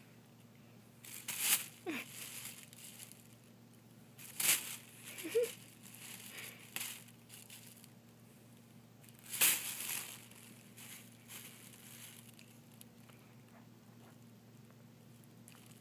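Thin plastic shopping bag crinkling in several short bursts as a cat paws and bites at it, the loudest about four and a half and nine and a half seconds in.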